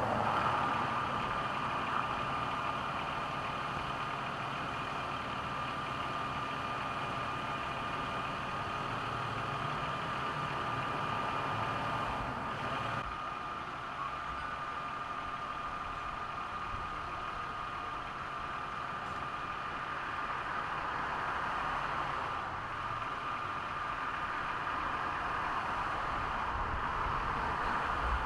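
Vehicle engine idling steadily, with a constant high-pitched whine over it.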